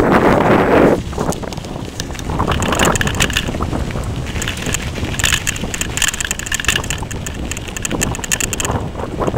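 Wind buffeting the microphone of a bicycle rolling along a country road, strongest in the first second, then tyre noise with quick rattling clicks from the bike.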